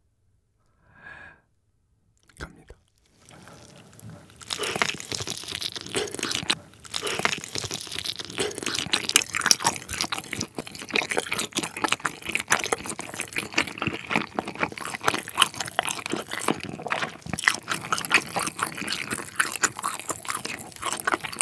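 Close-miked biting and chewing of a glazed roast chicken leg: wet, sticky crackles and smacks of skin and meat being torn and chewed. It starts about three to four seconds in and goes on steadily.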